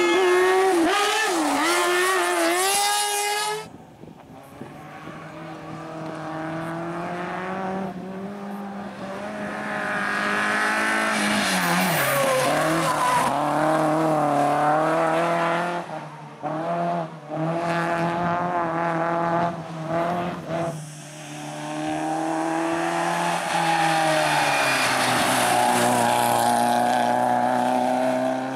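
Racing car engines at full throttle on a hill climb, revving hard and swinging up and down through the gears. The first engine cuts off abruptly a few seconds in, then another climbs through the revs, with quick lifts off the throttle around the middle. Tyres squeal at times.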